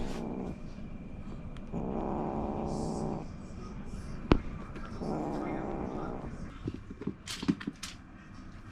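Munchkin kitten giving hoarse, raspy cries that are mostly breath, with hardly any voice: the tail of one at the start, then two more about a second and a half long each. A sharp click a little after the middle is the loudest moment, and a few faint clicks follow near the end.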